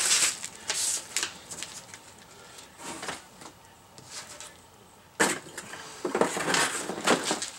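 Packaging and parts being handled during an unboxing: rustling and light clattering in short bursts, with a louder stretch of handling near the end.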